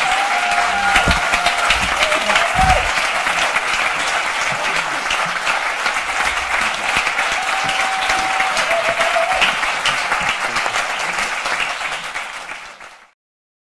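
Audience applauding steadily, a dense crowd of hand claps that fades out near the end.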